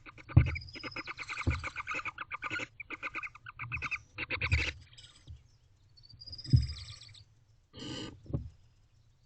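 Barn owlet twittering: a rapid run of short chittering notes, several a second, for about the first four and a half seconds, then quieter, scattered calls. A few dull thumps sound among them.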